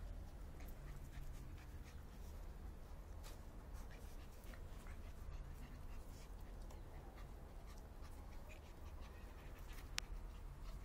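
Soft Coated Wheaten Terrier puppies playing on a tiled floor: faint panting and scuffling with scattered light clicks, and one sharp click near the end.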